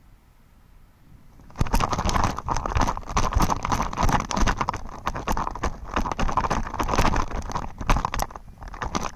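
Paraglider pilot touching down on grass and running out the landing: quick thudding footsteps mixed with rustling and knocking of harness and clothing close to the camera. The sounds start suddenly about a second and a half in and ease off near the end as the steps become a walk.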